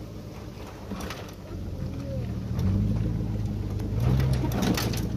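Pickup truck driving, its engine and road noise heard from the open truck bed as a steady low rumble that grows louder about halfway through, with a few knocks near the end.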